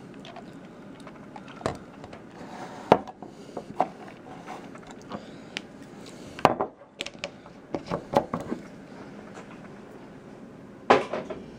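Scattered light clicks and knocks of ice cubes settling and plastic cups being handled on a wooden table as grenadine is poured over ice, with a louder knock near the end.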